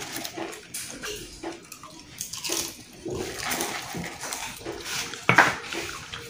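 Children eating and drinking at a kitchen counter: hands rummaging in plastic popcorn bowls, sips from juice glasses, and small irregular knocks, with one sharp knock about five seconds in.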